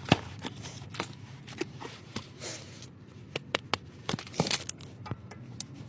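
Cardboard and paper packaging being handled and torn open, with scattered light clicks and rustles over a faint steady hum, as a box of ATE brake discs is unpacked.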